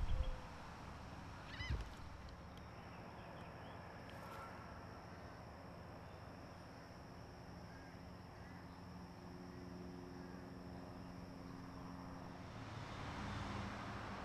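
Faint outdoor ambience with a steady low hum and a thin high steady tone. A short bird call comes about two seconds in.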